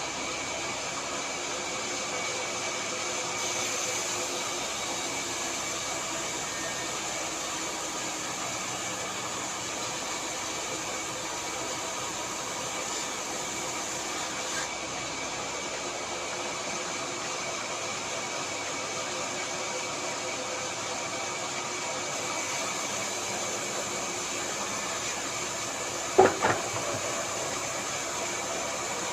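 Power saw for cutting timber running steadily, a constant machine hum with a high whine. Near the end there is one short, sharp knock.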